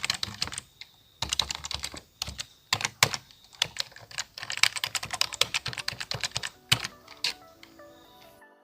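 Rapid, irregular clicking and tapping that stops about seven seconds in, followed by a few soft stepped musical notes near the end.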